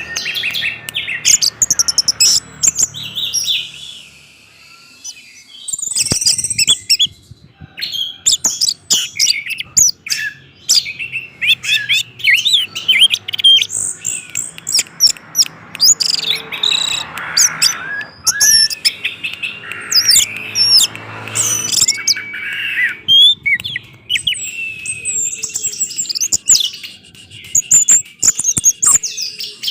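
Orange-headed thrush singing a long, varied song of rapid high chirps and whistles, with a brief pause about four seconds in.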